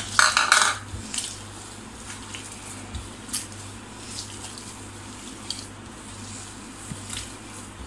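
A hand squeezing and mixing a wet mash of boiled potatoes, spices and green chutney in a bowl: wet squishing, loudest in a burst at the start, then soft scattered squelches.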